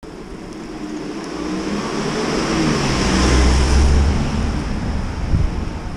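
A car passing close by, engine and tyre noise on a wet street swelling to a peak about three and a half seconds in and then fading.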